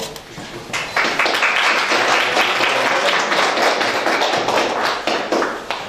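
Audience applauding: many hands clapping together, rising about a second in and fading near the end.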